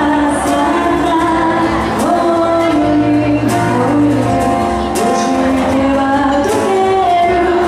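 Live acoustic band playing a song: a singer over keyboard and acoustic guitar, with cajón strokes keeping the beat.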